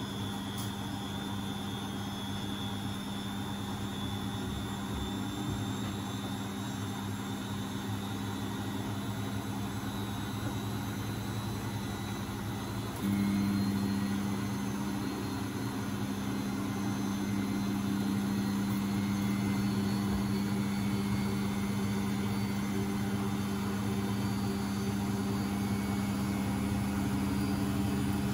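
Beko WMB71642W washing machine running with a steady motor hum. About halfway through the hum suddenly steps up louder and holds there.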